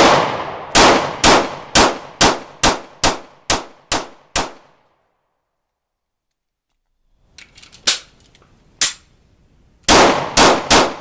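.40-calibre Springfield XD(M) pistol fired rapidly: a string of about ten shots at roughly two a second, then a pause of a few seconds. After the pause come two single shots and another fast string near the end.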